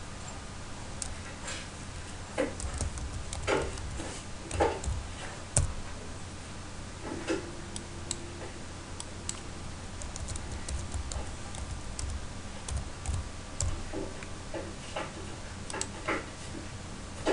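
Computer keyboard typing: irregular keystrokes with a few louder, heavier key strikes, over a steady low hum.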